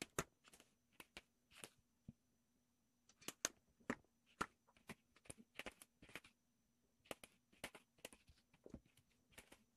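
Faint, irregular scratching and rustling strokes from a kitten pawing at the floor in a burying motion, with a brief pause about two seconds in.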